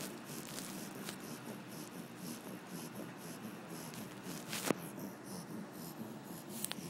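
Pit bull snoring: a raspy, rhythmic breathing sound pulsing about two to three times a second. A sharp click sounds about two-thirds of the way through, and a smaller one near the end.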